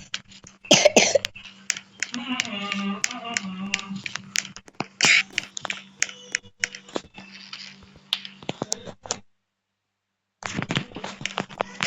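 A rapid scatter of sharp clicks and taps, with a voice sounding briefly a couple of seconds in, over a steady low hum. The sound cuts out to dead silence for about a second near the end.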